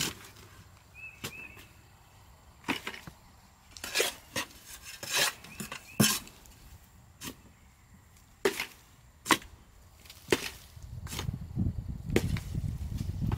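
A hand trowel scooping sandy soil out of a steel tractor loader bucket into a plastic bucket: a string of short, sharp scrapes and knocks, roughly one a second. A low rumbling noise comes in near the end.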